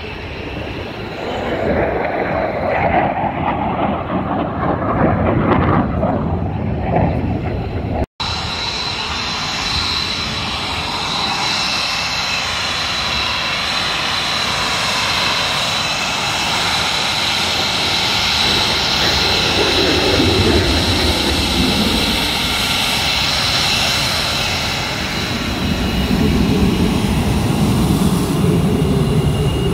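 Jet engine noise from an aircraft flying over for the first few seconds. After a brief dropout, an F-22 Raptor's twin turbofan engines run on the ground with a steady high whine over a loud rush.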